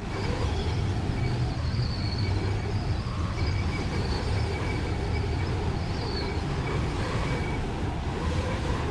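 Steady low rumble of a moving vehicle, with faint thin high tones coming and going above it.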